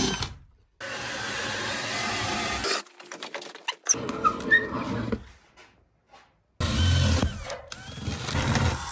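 Cordless DeWalt drill boring holes through wood framing and the exterior wall, running in two steady stretches of a couple of seconds each, about a second in and again near the end. Short clicks and knocks come in between.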